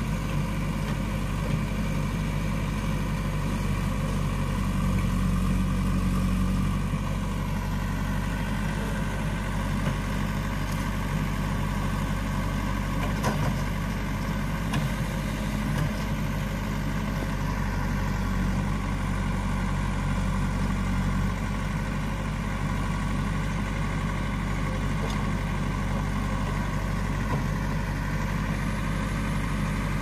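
JCB 3DX backhoe loader's diesel engine running steadily while the backhoe arm digs, briefly louder around five seconds in, with a few brief knocks partway through.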